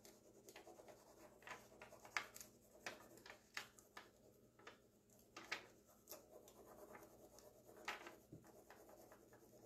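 Faint, irregular scratching strokes of a handheld transfer tool rubbed over the clear plastic backing sheet of a rub-on furniture transfer, pressing the design onto the painted wood so it releases from the sheet.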